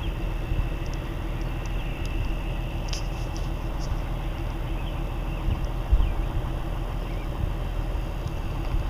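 Car engine idling steadily: a low, even rumble.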